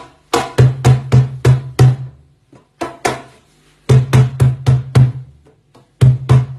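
Peruvian cajón played with the hands: quick groups of strikes mixing deep bass tones and sharp slaps, with short pauses between the groups.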